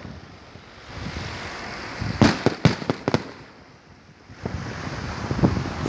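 Holiday fireworks salute going off: a quick cluster of sharp bangs and cracks about two to three seconds in, then a few more bangs near the end, over a steady rushing hiss.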